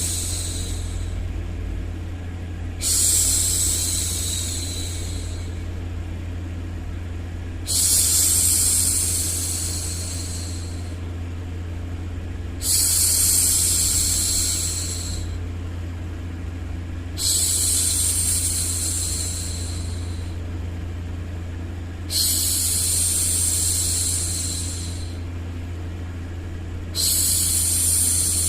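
A woman's voice shushing a baby, a long 'shhh' repeated about every five seconds, each one starting sharply and fading away over two to three seconds, over a steady low white-noise bed.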